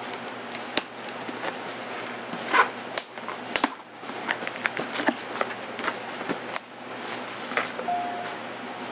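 Cardboard shipping box and its packing being opened and rummaged through by hand: irregular rustles, scrapes and sharp clicks, with a brief squeak near the end.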